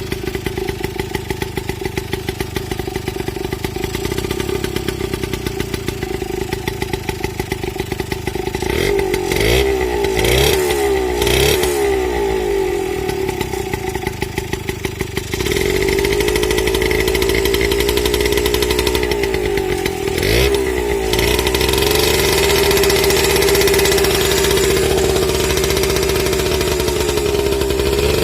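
Two-stroke motorcycle engine powering a log-hauling winch. It runs steadily at low speed, is revved up and down several times about nine to twelve seconds in, then holds at higher revs, louder, from about halfway, with a brief dip in speed a few seconds later.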